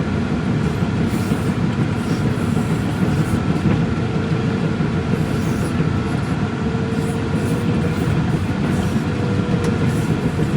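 Steady low rumble of a running vehicle, with a faint steady hum on top and no distinct knocks or changes.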